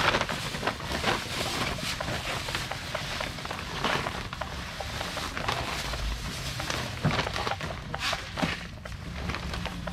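Plastic bags rustling and crinkling as they are handled and filled with rice, in a run of small irregular crackles.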